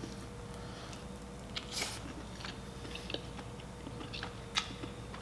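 Close-miked mukbang eating of king crab meat: quiet chewing with a few short sharp clicks and mouth smacks, one about two seconds in and another near the end.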